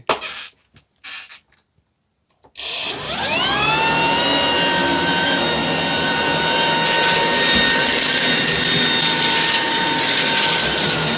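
Shark DuoClean cordless stick vacuum switched on after a couple of clicks, its motor whine rising in pitch as it spins up and then running steadily with a high whine over rushing airflow.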